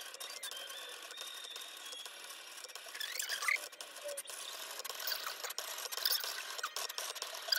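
Cricut cutting machine cutting vinyl: its motors whir in short rising and falling whines as the blade carriage traces the lettering, getting busier about halfway through.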